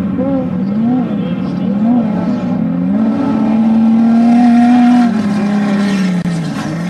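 Desert race vehicle's engine revving up and down about once a second, then held at high revs for a couple of seconds before dropping back near the end.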